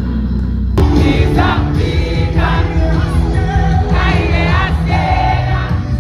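Music with group singing in a choir-like style over a steady bass line, coming in full with a sharp hit about a second in.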